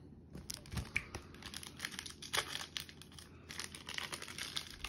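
Clear plastic wrapper of a baseball card pack crinkling and tearing in irregular crackles as it is worked open by hand, the wrapper resisting being opened.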